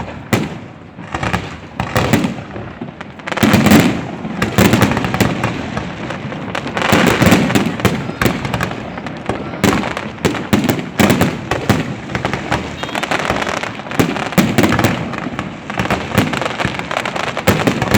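Fireworks going off: a dense, continuous series of bangs and crackles with louder booms every few seconds.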